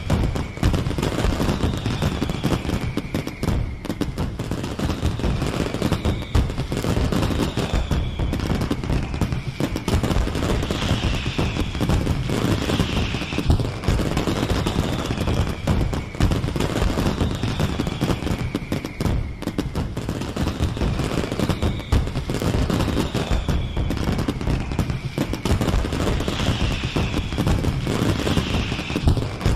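Fireworks display: a dense, continuous barrage of crackling and popping bangs that starts suddenly, with high whistles gliding down in pitch every couple of seconds.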